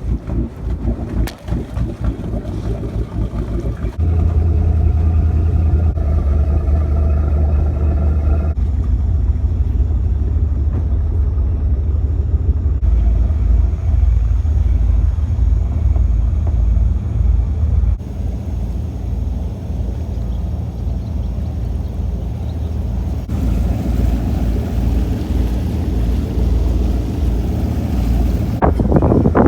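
Motorboat engine running with a steady low hum and wind on the microphone. The sound changes abruptly every few seconds.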